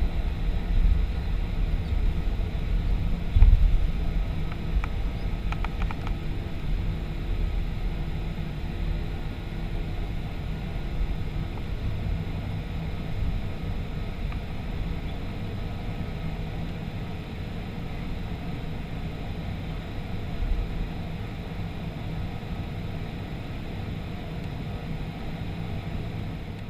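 Boeing 737-500 rolling on the ground after landing: a steady low rumble of its CFM56 engines at idle and the wheels, with a single bump about three and a half seconds in, easing slightly in level later on.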